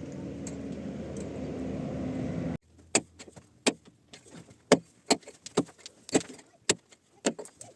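A steady low rumble, like a running motor, grows slightly louder and cuts off abruptly. It is followed by a string of sharp, irregular knocks and clinks, roughly two a second, as of hand tools striking hard material.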